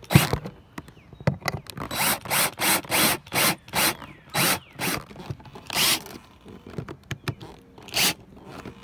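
Power drill driving a long exterior screw through a plastic mounting bracket into vinyl siding, run in a string of short trigger bursts, about a dozen, that come quickest in the middle and thin out near the end, as the screw is run all the way in.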